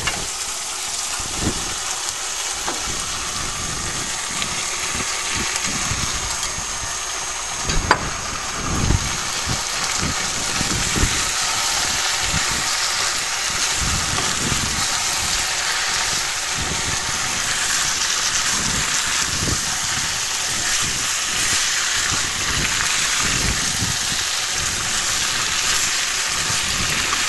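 Chicken, onion and capsicum sizzling in oil in a nonstick frying pan over a gas burner, a steady sizzle that grows somewhat louder about halfway through. A wooden spatula knocks and scrapes against the pan irregularly as the food is stirred, with one sharp click near a third of the way in.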